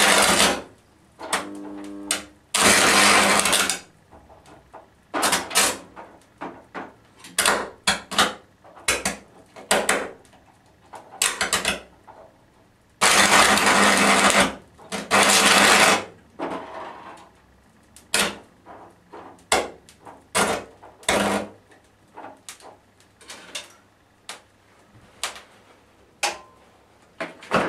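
High-voltage arc from a microwave oven transformer burning across an alarm clock's circuit board, buzzing and crackling in irregular bursts. The longest bursts come at the start, about three seconds in, and from about 13 to 16 seconds, with many short sharp snaps in between as the board burns.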